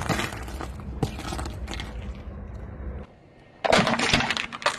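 Car tyre rolling over and crushing small objects: a run of sharp cracks, pops and crackling over a low rumble, a brief lull after about three seconds, then another dense burst of crunching.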